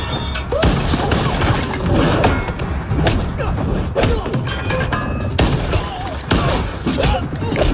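Film fight sound effects: a string of heavy punch and kick impacts, a thud every half second to a second, over a background score.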